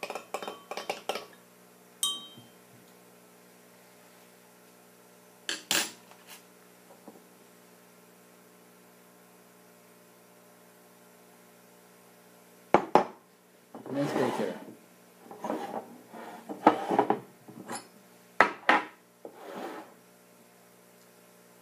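Glassware handled on a tabletop: a stirring rod clinking quickly against a glass beaker, then a single ringing clink and a couple of knocks. After a quiet stretch comes a run of glass knocks and scrapes as glass beakers and a large glass bottle are set down and moved. A faint steady hum lies underneath.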